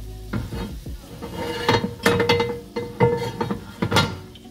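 Cookware and utensils knocking and clattering against metal pans on the stovetop, a run of sharp knocks, some leaving a brief metallic ring.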